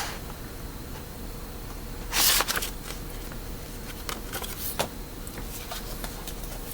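Photos or papers being handled: one brief rustle about two seconds in, then a few light taps and clicks.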